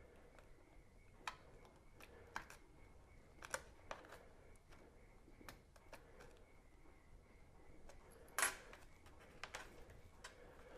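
Faint, irregular clicks and small snaps as the bottom cover of a Dell XPS 15 9550 laptop is pried loose from its clips, with one louder snap about eight seconds in.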